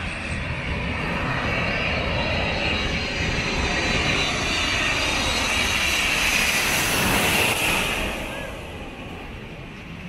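Twin-engine Delta jet airliner on low landing approach, flying directly overhead. A steady high engine whine rides over a rushing jet noise that builds to its loudest about seven seconds in, then fades as the plane passes.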